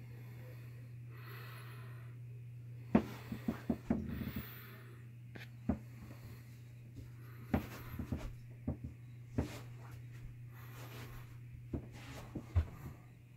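Steady low hum in a small room, with scattered light clicks and knocks starting about three seconds in and a few soft breathy noises.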